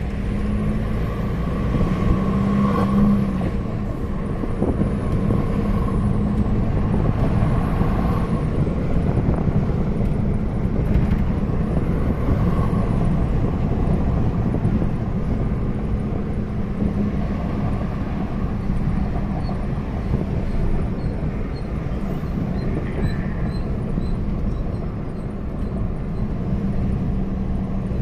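Force Gurkha's diesel engine running under way, with a high hissing whistle that rises and falls four times in the first half, each time over about two seconds.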